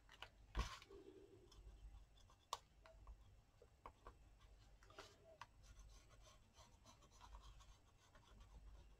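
Faint scratching of a pen scribbling a border on paper, with a few light ticks and taps among the strokes.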